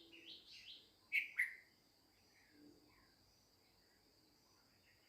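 Birds chirping: a few quick chirps at the start, then two louder calls about a second in that fall in pitch, followed by scattered faint chirps.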